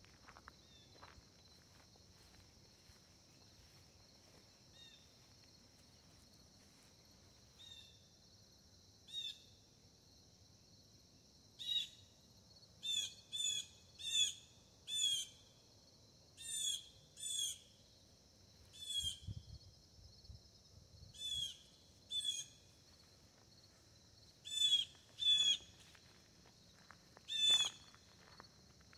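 A bird calling repeatedly in short, hooked, downslurred notes, one or two a second, starting several seconds in, over a steady high insect drone.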